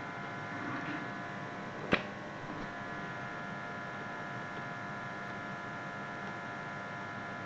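Steady electrical hum and hiss from the recording setup, with several fixed whining tones, and a single sharp click about two seconds in.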